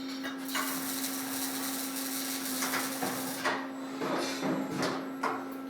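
Robotic arc welding on a Fronius power source set for spatter-free welding: a dense, steady hiss. The arc cuts out about three and a half seconds in and strikes again a moment later, with a few sharp clicks, over a constant low electrical hum.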